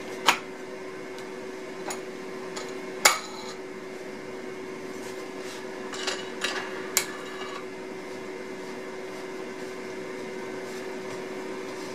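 A wooden board being set against a dovetail jig and clamped: a few scattered sharp knocks and clicks of wood and clamp hardware, the loudest about three seconds in, over a steady hum in the room.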